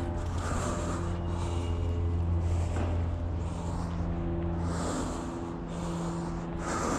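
Slow, heavy breaths, one about every two seconds, over a steady low machine hum that eases off somewhat past the middle.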